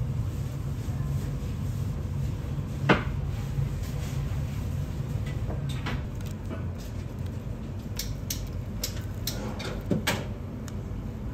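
Room ambience with a steady low hum, broken by scattered short clicks and knocks of dishes and tableware. The sharpest knock comes about three seconds in, and a cluster of lighter clicks comes near the end.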